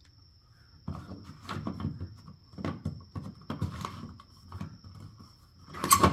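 Footsteps on a hard floor at a walking pace, starting about a second in, with a louder knock near the end.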